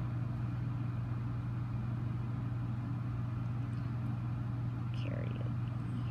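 Window air conditioner running with a steady low hum. A brief faint chirp-like sound comes about five seconds in.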